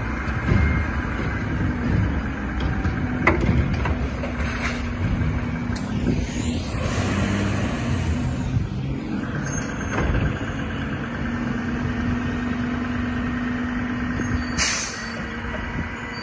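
Mack front-loader garbage truck running, with a steady whine from its engine and hydraulics as the arm raises the carry can over the cab. A broad swell of noise passes in the middle, and a short hiss of air brakes comes near the end.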